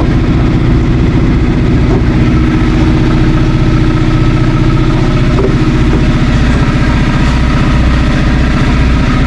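Large engine idling steadily and loudly, with an even low throb.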